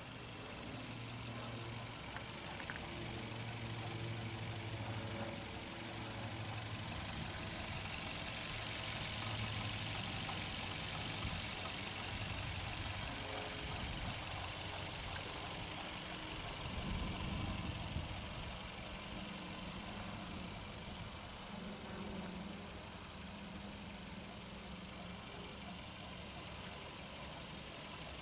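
FAW Oley's 1.5-litre naturally aspirated 16-valve DOHC inline-four idling steadily with the hood open.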